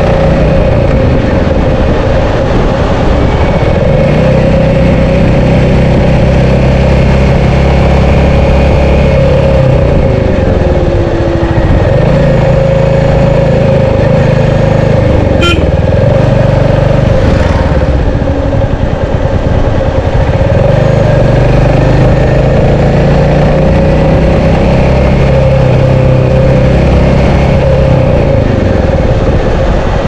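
Royal Enfield Meteor 350's single-cylinder engine running at road speed; its note drops and picks up again twice as the throttle is eased and reopened. A short click about halfway through.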